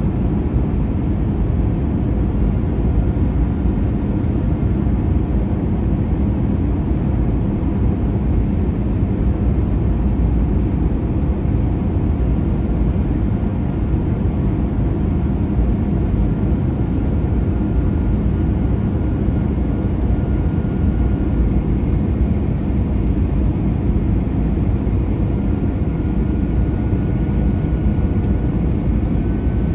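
Airbus A321 cabin noise on approach: a steady rumble of airflow and jet engines, with faint high whines that drift slightly in pitch.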